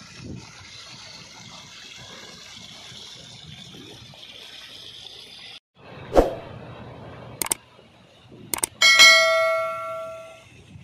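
A steady rushing noise of water and wind, cut off abruptly about halfway through. Then come a knock, a few mouse-click sounds and a loud bell ding that rings for about a second and a half and fades: the sound effect of a YouTube subscribe-button animation.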